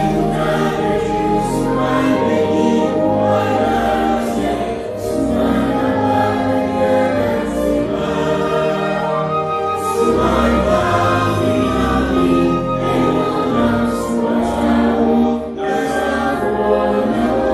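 Children's choir singing a song in Twi, many young voices together, over a steady low backing.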